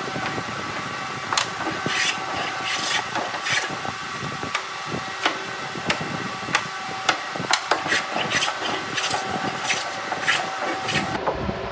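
Japanese hand plane (kanna) shaving the edge of a hardwood beam in quick repeated strokes, each a short scraping swish, coming thickest in the second half. The footage is sped up two times, so the strokes are shortened and quickened.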